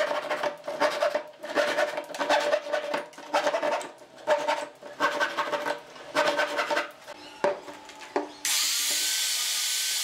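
Hand saw cutting protruding wooden dowels flush with the edge of a board, in quick back-and-forth strokes about two a second, followed by a couple of sharp knocks. About eight and a half seconds in, a handheld power sander with a sanding disc starts up with a steady hiss.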